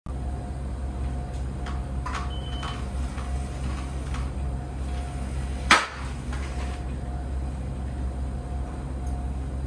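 A long metal bar hung from a single point on an electric balancer knocks and clanks as it tips. There are a few light clicks and one sharp clank about six seconds in, over a steady low hum.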